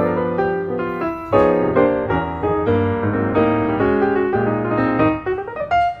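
Background piano music, a stream of struck notes and chords.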